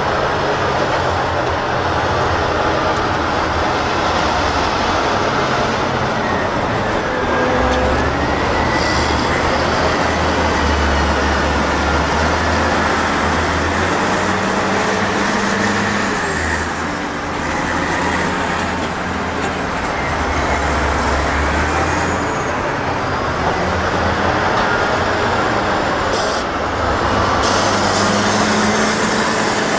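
Caterpillar 657 twin-engine wheel tractor-scrapers' diesel engines running hard under load while loading dirt, a steady heavy drone whose pitch rises and falls as they work.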